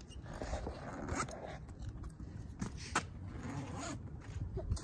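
The zippered fabric rain canopy of a cargo bike being handled and opened: a zipper drawn and the cover rustling, with a few short scrapes.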